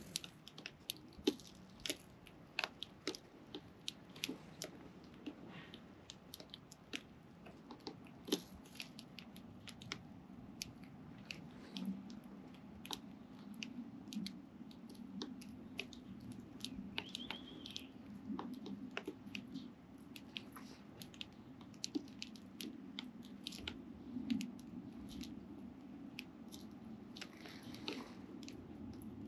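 Young sparrows pecking and cracking seed close to the microphone: irregular sharp clicks and crunches over a low steady hum, with a single short chirp partway through.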